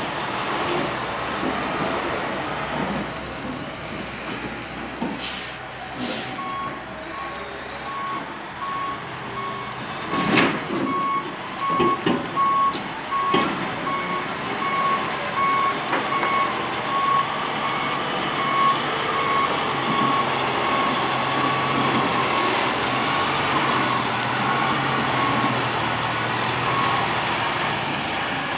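Semi-truck's diesel engine running as the rig manoeuvres, with its reversing alarm beeping about twice a second from about six seconds in until near the end. A few short, sharp hisses and knocks come in the first half.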